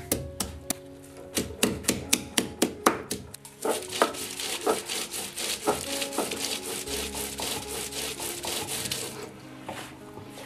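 Fresh ginger being crushed on a stone grinding slab: the hand stone knocks down on it in quick strikes for the first few seconds, then scrapes back and forth across the slab, grinding it to a paste, until shortly before the end. Faint background music underneath.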